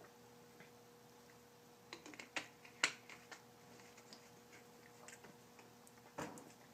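Faint clicks and crackles of a plastic water bottle being handled and its cap twisted, clustered about two to three and a half seconds in, then a brief hiss near the end.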